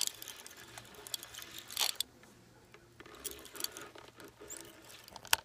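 Handling noise from a phone being moved about in the hand: scattered faint clicks and rustles, a brief rustle about two seconds in, and a sharp click near the end.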